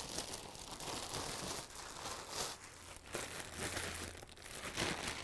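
Clear plastic shipping bag crinkling and rustling in irregular bursts as it is pulled off a tripod and crumpled up by hand.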